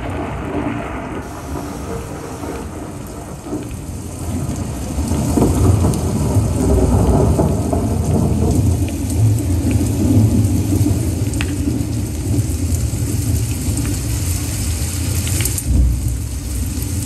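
Thunderstorm sound effect: deep rolling thunder over a steady rain-like hiss, growing louder about five seconds in, staging the storm at the moment of the crucifixion.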